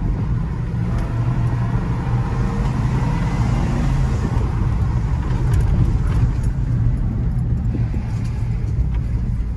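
1992 Ford F-150 pickup's engine pulling under throttle up a hill, heard from inside the cab as a steady low rumble that rises in pitch over the first few seconds.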